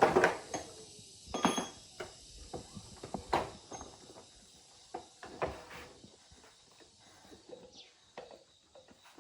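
Scattered knocks and metallic clinks of metal tools or parts being handled and set down, the loudest right at the start and then every second or two, thinning out over the last few seconds.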